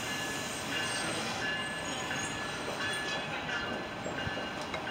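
NJ Transit Multilevel double-deck passenger cars rolling slowly along the platform as the train brakes to a stop: a steady rumble of wheels on rail with faint, brief high squeals coming and going.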